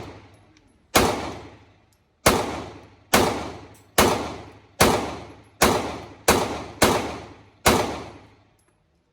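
Glock pistol firing nine shots in a steady string, roughly one a second, each crack followed by a ringing echo that dies away.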